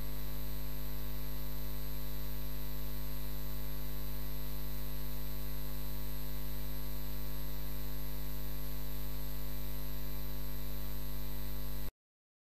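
Steady electrical mains hum with a stack of even overtones, which cuts off abruptly near the end into silence.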